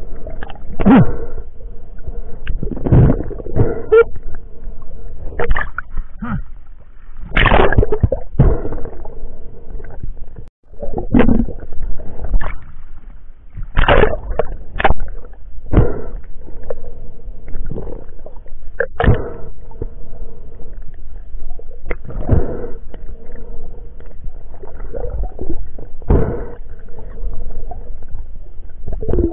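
Underwater sound picked up through an action camera's waterproof housing during a breath-hold dive: irregular knocks and swishes every second or so, with a steady hum underneath.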